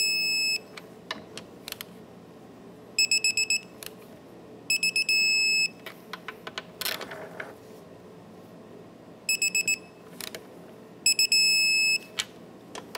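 Digital torque wrench beeping as it tightens the throttle body screws: a run of quick high beeps that turns into one long steady beep when each screw reaches the 80 in-lb setting. This happens about five times.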